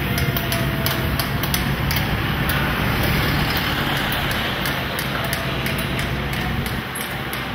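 Street march ambience: a vehicle engine's steady low hum under a dense wash of crowd and traffic noise, with frequent irregular sharp knocks.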